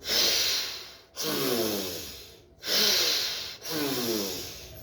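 A person breathing hard through the nose in anulom vilom (alternate-nostril breathing). There are four long breaths in a row, about one every second and a bit, each fading out and carrying a falling pitched tone.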